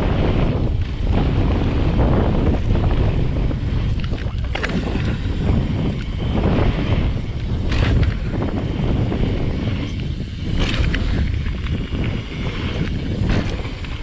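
Wind buffeting the camera microphone and a mountain bike's tyres rolling fast over a dirt and gravel trail, with a few sharp clicks or knocks from the bike and stones.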